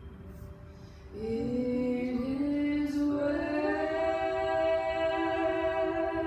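A woman singing into a handheld microphone: her voice comes in about a second in, rises in pitch, then holds one long note.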